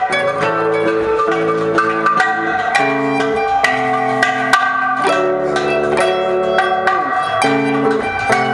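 Live acoustic band music: a plucked acoustic guitar and other pitched instruments playing held notes with occasional sliding notes, over bongos struck by hand and a cymbal.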